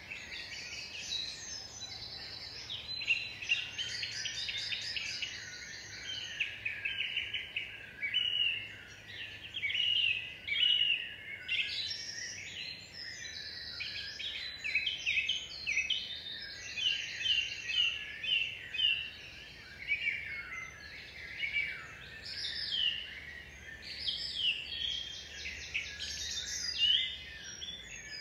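Several songbirds singing at once, a continuous chorus of overlapping chirps and rapid trills.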